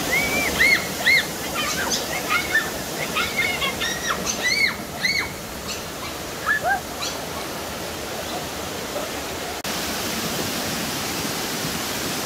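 Rushing water pouring down a natural rock water slide into a river pool. Over it, in the first few seconds, comes a flurry of short high-pitched shrieks from people sliding down.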